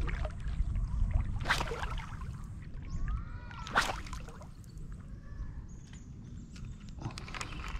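Low rumble of wind and water on an action camera's microphone, with two short, sharp splashes about a second and a half and four seconds in, and a few faint ticks near the end.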